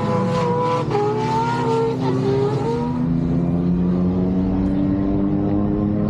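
Drift cars' engines revving hard, their pitch rising and falling over the first three seconds, then settling into a lower, steadier drone.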